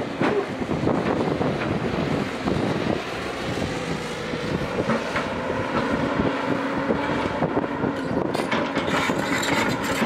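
JCB tracked excavator's diesel engine running under load as the machine slews round and lifts its boom, with a steady hydraulic whine joining about three seconds in.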